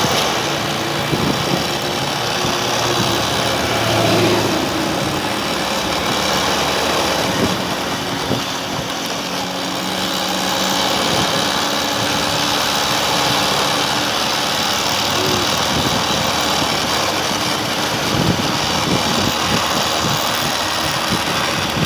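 Homemade velocipede's 2 kW washing-machine BLDC electric motor running under way, a steady mix of motor hum and drivetrain noise, with a few knocks and rattles near the end.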